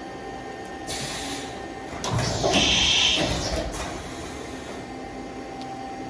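Milltronics VM3018 CNC vertical machining centre humming steadily, with a rushing, hissing burst that builds about a second in, is loudest for a second or so, and dies away around four seconds in, after a button is pressed on its control panel.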